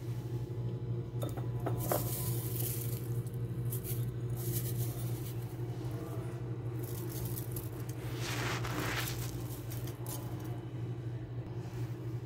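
Steady low hum of a kitchen, with faint clicks and light handling sounds as fried onion strips are spread in an aluminium pot. A short hiss comes about eight seconds in.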